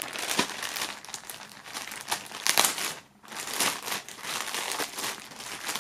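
Clear plastic bags wrapping a beanie and a towel crinkling as they are handled and moved about. The rustling comes in irregular bursts, with a brief lull about three seconds in.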